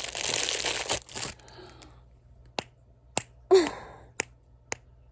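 Plastic packaging crinkling as a snapper fidget toy is unwrapped. Then the toy snaps sharply four times, with about half a second or more between snaps, and a brief vocal exclamation falls between the second and third snap.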